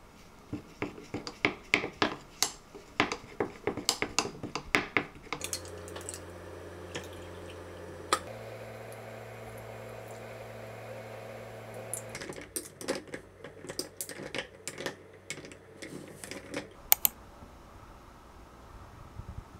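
A spoon stirring and clinking against a small glass jug in quick, sharp taps, then a steady low hum in the middle, then more clinks of glass and ice as the drink is poured over ice in a tall glass.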